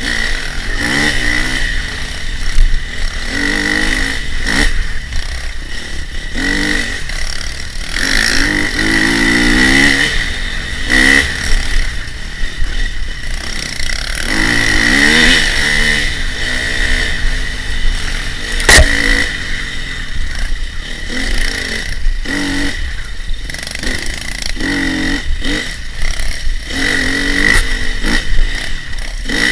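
Enduro dirt bike engine heard from on board, its pitch rising and falling again and again as the throttle opens and closes, with the chassis clattering over rough ground. A sharp knock comes a little after halfway through.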